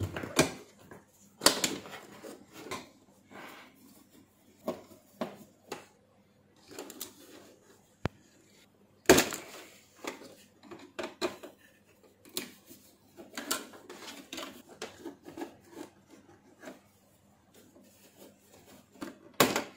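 Scattered clicks, taps and rustles of hands unplugging wire connectors from an LED TV's combo board and moving the cables over the TV's sheet-metal back panel, with the sharpest knock about nine seconds in.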